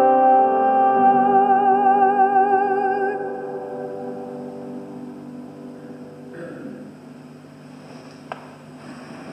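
Recorded music ending on a long held chord with a wavering vibrato, which breaks off about three seconds in and dies away into the church's reverberation, leaving quiet room tone with one small click near the end.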